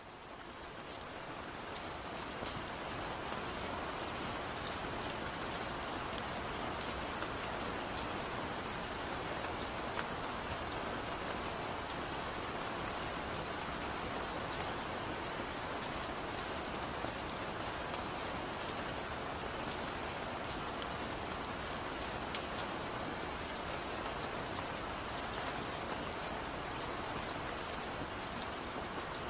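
Steady rain falling on a surface, an even hiss with scattered sharp drop ticks. It fades in over the first two seconds or so, then holds steady.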